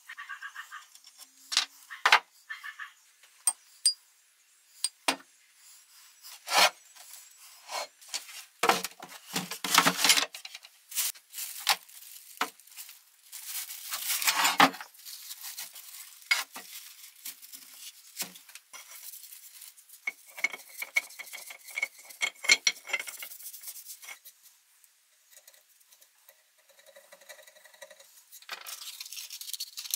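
Metal parts and tools clinking, knocking and scraping as they are handled, in irregular sharp knocks and short scrapes, quieter near the end.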